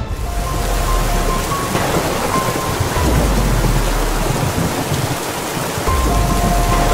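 Thunderstorm: steady heavy rain with deep rolling thunder that swells three times, about a second in, around three seconds, and near the end.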